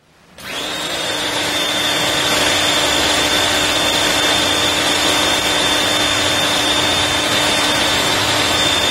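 ABW VGS 70 high-pressure washer running, with the water jet spraying from the lance onto concrete. It comes up quickly in the first half second, then holds a steady, loud hum over a dense hiss.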